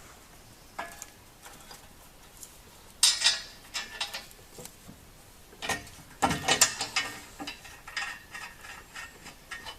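Hand ratchet wrench clicking in quick runs with metal tool clatter: a loud clatter about three seconds in, then a longer run of rapid clicks from about six seconds on.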